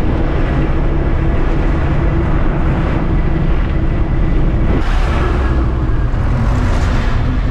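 Moving bus heard from inside: a steady low engine and road rumble with a faint engine hum, and brief swells of hiss about five and seven seconds in.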